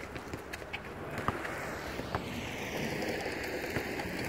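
Inline skate wheels rolling on a sport-court surface, growing steadily louder as the skater approaches. A few sharp stick taps on the ball come in the first second.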